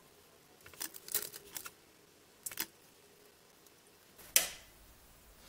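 Small clicks and rattles of hands handling a circuit board, wire and soldering tools on a workbench, in a few short clusters, with a single sharper knock a little after four seconds in.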